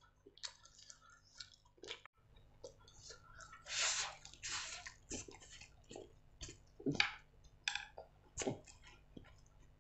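Close-up eating sounds: wet chewing and mouth clicks, with two long, loud slurps of noodles about four seconds in.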